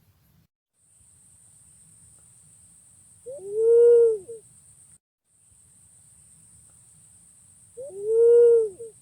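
Punai pink green pigeon calling twice, about four and a half seconds apart: each call is a low whistled coo that rises and then falls, with a short note just before it. A faint steady high hiss runs under the calls.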